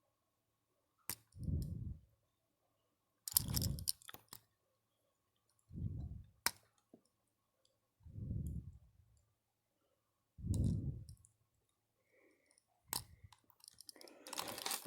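Small clicks and ticks from handling a pocket watch as its hands are turned to set the time. Between the clicks come soft, low puffs of breath on the microphone, about every two and a half seconds.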